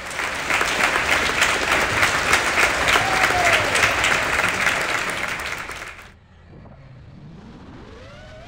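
Crowd applauding, a steady patter of many hands clapping that cuts off suddenly about six seconds in.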